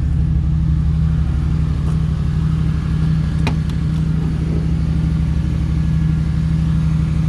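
Fuel-injected GM LS V8 idling steadily through a single Magnaflow muffler and Y-pipe to dual outlets, a throaty exhaust note. A single sharp click about three and a half seconds in.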